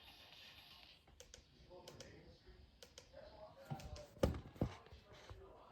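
Scattered light clicks and taps, with two louder thumps a little past four seconds in.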